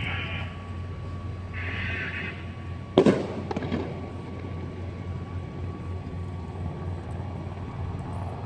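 A single loud bang about three seconds in, with a short echoing tail and a couple of smaller knocks after it, over a steady low rumble.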